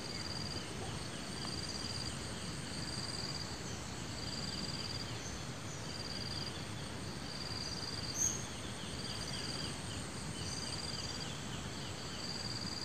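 Outdoor ambience: an insect repeats a short high trill about once a second over a steady background hiss, with one brief high chirp about eight seconds in.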